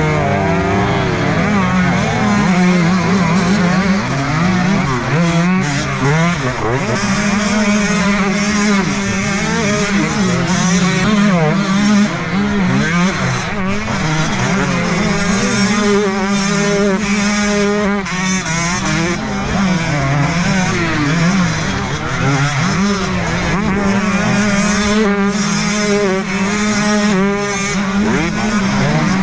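Several 125cc two-stroke motocross bike engines running together, heard from a camera mounted on one of the bikes. The throttles are blipped and feathered constantly, so the engine pitches keep rising and falling over one another.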